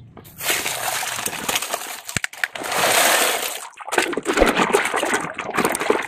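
Water sloshing and splashing as a hand moves plastic toy trucks through shallow muddy water, with a few light knocks of plastic. The splashing is loudest about halfway through.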